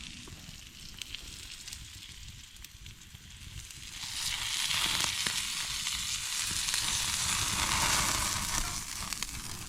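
Food sizzling over a campfire, with light crackles; soft at first, it grows much louder about four seconds in.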